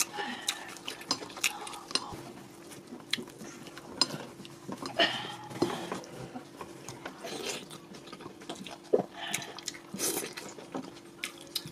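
Close-up eating sounds of fufu and egusi soup eaten by hand: fingers working the fufu through the soup in the bowl, then chewing, heard as many small wet clicks and smacks scattered throughout. A faint steady hum runs underneath.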